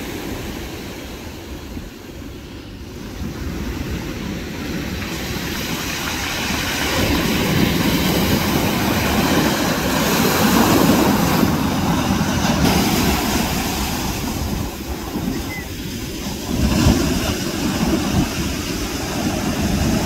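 Sea surf breaking and washing over a pebble beach: a steady rushing noise that swells louder as the bigger waves come in, mostly in the middle and again near the end.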